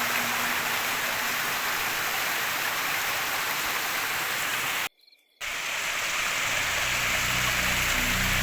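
Waterfall's steady rush of falling water. It cuts out abruptly for about half a second around the middle, and background music with low sustained notes comes in over the last couple of seconds.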